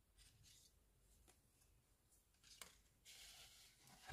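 Faint handling of glossy photocards and paper on a table: a couple of light taps, a short rustle about three seconds in, and a louder tap at the very end.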